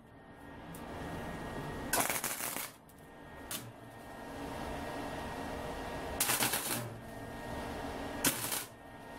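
MIG welder laying tack welds on the rusty steel rear hatch frame: four short bursts of arc, each under a second, one of them only a brief blip, with a steady hum between them.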